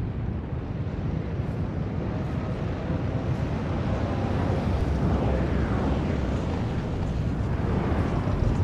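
Burning oil well blowout fire, its jet of flame burning steadily with a deep rushing noise that grows a little louder.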